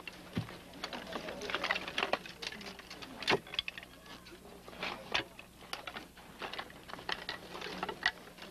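Irregular dry clicks, knocks and scrapes at an uneven pace as exhumed human bones are handled and set into a metal-lined coffin, over a faint steady hum.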